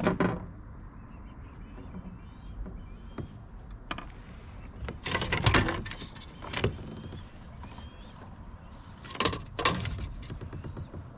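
Bursts of knocking and rattling from a bass being handled aboard a kayak: a cluster at the start, another about halfway through and a third near the end.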